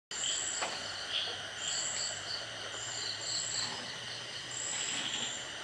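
A chorus of crickets and other insects: several high-pitched trills layered with repeated pulsing chirps, and a faint low hum underneath.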